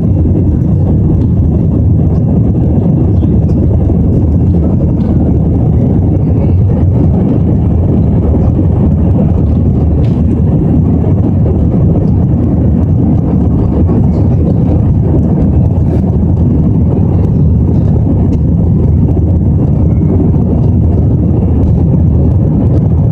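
Steady low rumble of an Airbus A321's jet engines and rushing airflow, heard from inside the passenger cabin as the airliner climbs out after takeoff.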